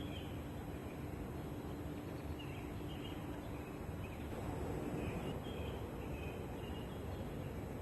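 Small birds chirping in short, scattered high notes over a steady low rumble of wind on the microphone.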